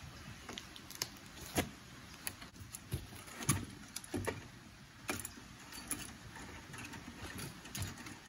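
Roll of chicken wire being handled and unrolled across a wooden frame: light metallic jingling with irregular clicks and taps.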